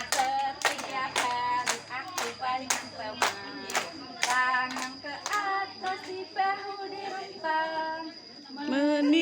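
Rhythmic hand clapping, about two claps a second, under a children's action song sung in unison. The claps stop about halfway through while the singing goes on.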